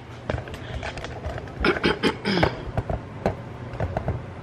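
Scattered light clicks and knocks of kitchen handling over a steady low hum, with a brief murmur about two seconds in.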